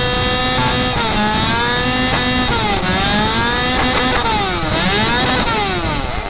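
Engine revving up and down several times, its pitch rising and falling in repeated sweeps.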